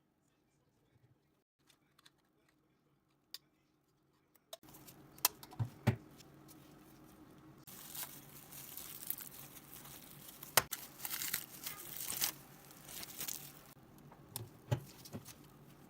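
Close-up workshop handling noise on a small toy car: a few faint clicks, then about four and a half seconds in a rasping, scraping noise begins, with sharp clicks and taps. The scraping is loudest for several seconds in the middle.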